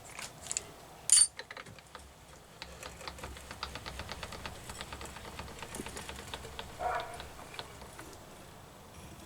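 A hand-cranked machine mechanism clicking in a fast, even run of light metallic ticks over a faint low hum, after a single sharp click about a second in, as the work is wound across to line up the next hole for drilling.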